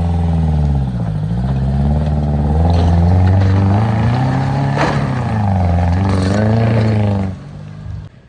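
A vehicle engine revved hard and held, its pitch falling and rising several times before it drops back near the end, with a sharp click about five seconds in.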